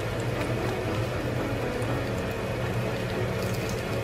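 Cooking oil sizzling and crackling in a frying pan as dongeurangttaeng and neobiani patties fry, over a steady low hum.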